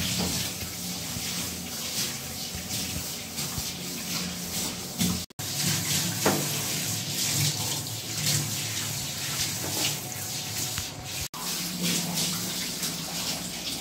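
Handheld bathtub shower spraying water onto a husky's coat, rinsing out shampoo, with water running and splashing into the tub. The steady rush breaks off for an instant twice.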